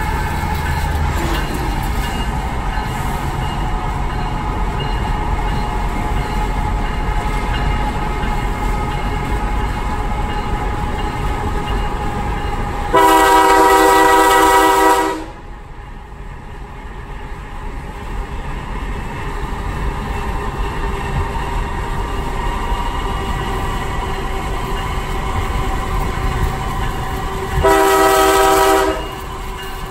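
CSX diesel freight locomotive's air horn blowing a long blast of about two seconds roughly 13 s in, and another about a second long near the end, the start of a grade-crossing horn sequence. Between the blasts there is a steady rumble of the passing train and tyre noise, heard from inside a moving car.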